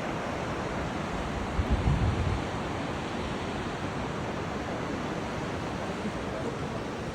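Steady outdoor rushing noise, with a stronger low rumble about two seconds in.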